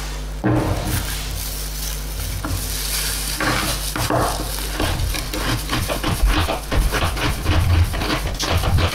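Kitchen knife slicing a block of palm sugar on a plastic cutting board: scraping and handling at first, then quick repeated cutting strokes, several a second, from about halfway through.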